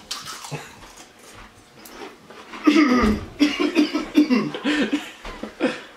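A man coughing and making wordless vocal sounds while chewing a Carolina Reaper chip, reacting to its heat. The sounds start about halfway through.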